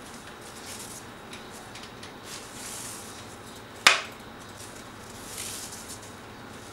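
Crepe paper rustling and crinkling as hands press torn strips into a plastic tub, in soft swells on and off. A single sharp knock about four seconds in.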